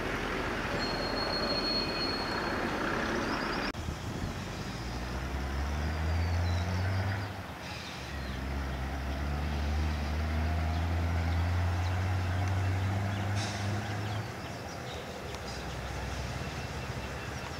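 Wind noise on the microphone for the first few seconds, then the low, steady drone of an EMD diesel-electric locomotive's engine as it approaches with a passenger train. The drone drops away near the end.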